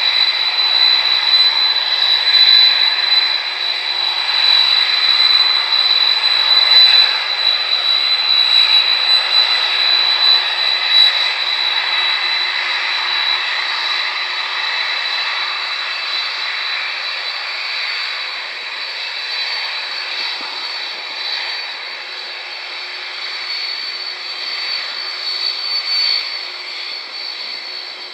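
Jet engines of a Boeing 747-400 running as the airliner moves along the ground: a steady rush with a thin high whine on top, slowly getting quieter.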